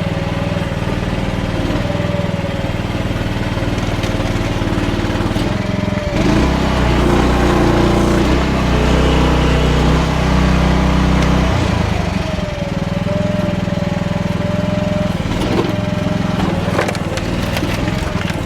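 AGT H12R mini excavator running steadily. For several seconds in the middle it runs louder and deeper as it works under load. A steady whine sounds near the start and again after the loud stretch, and a few sharp knocks come near the end.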